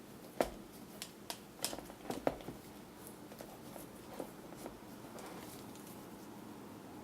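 A string of light clicks and taps from parts being handled by hand, bunched in the first couple of seconds, then two more near the middle.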